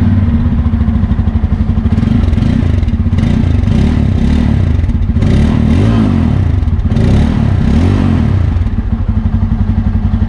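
Bajaj Pulsar N250's 250 cc single-cylinder oil-cooled engine idling through its twin-outlet exhaust with a pronounced beat, the revs rising briefly and dropping back several times.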